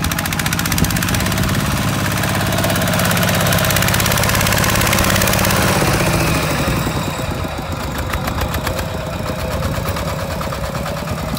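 Kubota RT140 walking tractor's single-cylinder diesel engine chugging under load as it hauls a trailer of rice sacks. It is loudest about halfway through as it passes close, then fades off.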